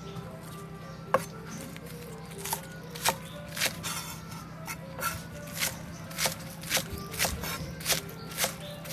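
Cleaver chopping green onions on a round wooden chopping board: one knock about a second in, then steady chops about twice a second. Background music runs underneath.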